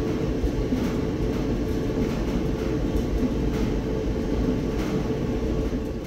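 Amana electric dryer running with its drum turning: a steady rumble with an even hum. The heater is not coming on, a sign of a worn timer contact.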